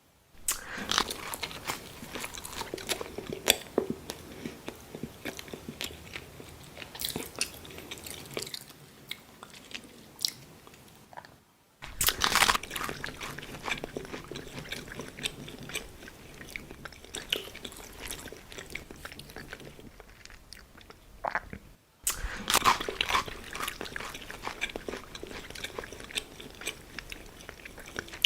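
Close-miked ASMR eating: crunchy bites into pizza followed by steady chewing, in three takes split by two brief silent breaks about 12 and 22 seconds in. The loudest crunches come just after each break.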